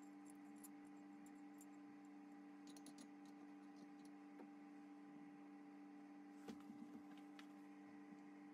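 Near silence over a steady low hum, with faint clicks and light taps of metal pump parts being handled on the bench and a few soft knocks about six and a half to seven seconds in.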